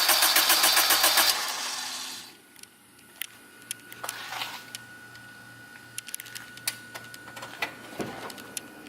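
Turbocharged Acura RSX's four-cylinder engine being cranked by the starter in an even rhythm without catching. The cranking stops about a second and a half in, and it has failed to start. Afterwards only a faint steady high whine and scattered small clicks are heard.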